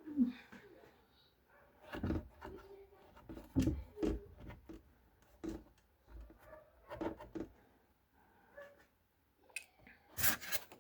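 Intermittent rubbing and light knocks, irregular and scattered, of things being handled and scrubbed by hand.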